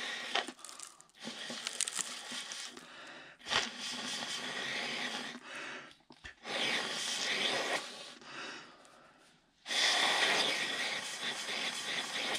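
A person blowing hard through a clear plastic tube pushed into a drilled hole in asphalt, clearing out the drilling dust before resin anchors are set. There are about five long blows of one to two seconds each, with short pauses for breath between them.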